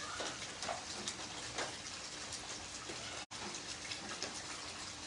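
Heavy rain falling onto wet concrete and standing puddles, a steady hiss of splashing drops. The sound cuts out for an instant a little past three seconds in.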